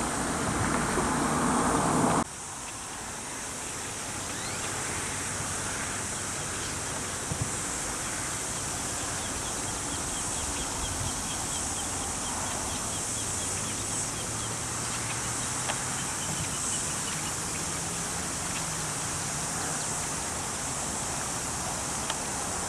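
Outdoor ambience: a steady high hiss with a faint low hum, and a faint run of quick bird chirps in the middle. A louder rush of noise at the start cuts off abruptly about two seconds in.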